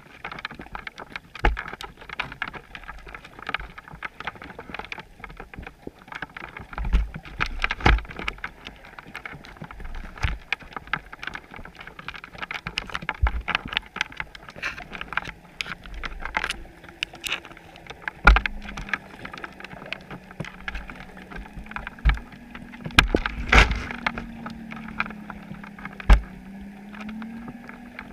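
Underwater sound through a GoPro housing on a chum pot: irregular clicks and knocks over a muffled water hiss, with a steady low drone coming in about two-thirds of the way through.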